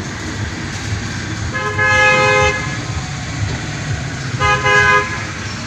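A vehicle horn honks twice, about a second long and then a shorter one, over a steady low rumble of engines.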